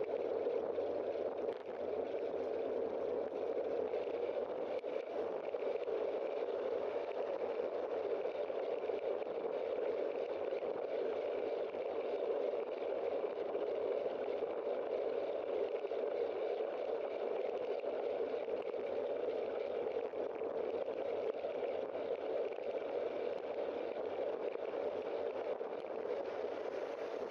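Steady rushing of wind and road noise picked up by a bike-mounted camera while riding, with no sharp events.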